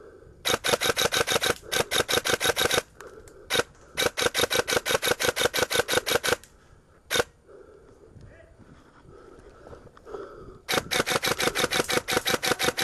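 Airsoft rifle firing rapid full-auto bursts: three long strings of sharp, evenly spaced shots, with a single shot after each of the first two.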